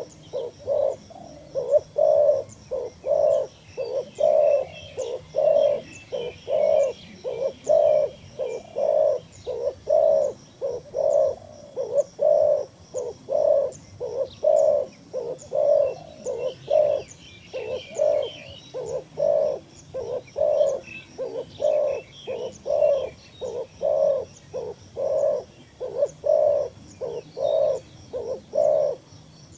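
A dove cooing over and over in an even, unbroken rhythm, roughly two low coos a second, with faint chirps of small birds behind it.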